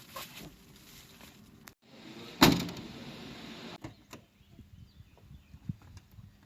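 A single loud thump about two and a half seconds in, trailing off in about a second of rattling noise, followed by a few faint clicks.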